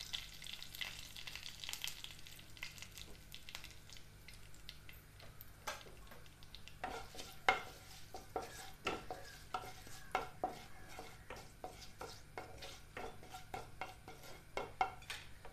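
Tadka sizzling in hot ghee in a non-stick kadhai, with curry leaves, bay leaves, seeds and asafoetida frying. From about six seconds in a spatula stirs the tempering, clicking and tapping against the pan several times a second.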